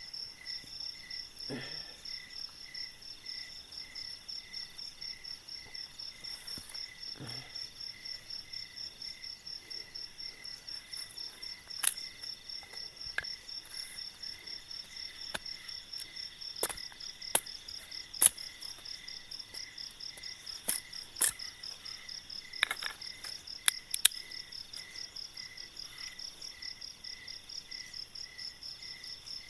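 Night insects chirp in a steady, pulsing rhythm throughout. Partway through comes a run of sharp cracks and knocks from bamboo sticks being chopped and split by hand at a campfire, the loudest sounds here.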